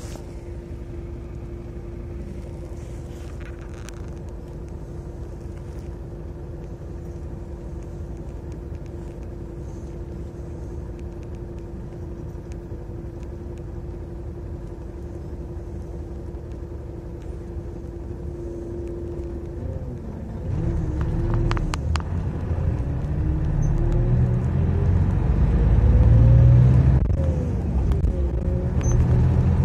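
City bus engine idling with a steady hum, heard from inside the cabin. About twenty seconds in, the bus pulls away and the engine grows louder, its note climbing as it gathers speed.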